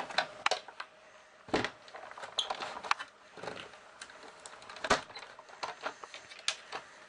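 Sizzix Big Shot die-cutting machine being hand-cranked, the plastic cutting plates with the die and paper pressed through its rollers: scattered clicks and knocks, with louder thuds about one and a half seconds in and again near five seconds.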